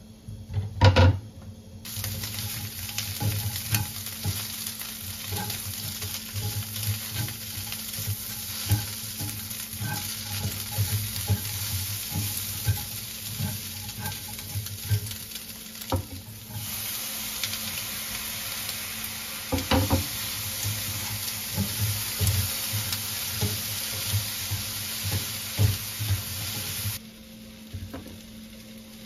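Green beans and ham sizzling in a nonstick frying pan, stirred with a plastic slotted spatula that knocks and scrapes against the pan, with a loud knock about a second in. The sizzling stops near the end.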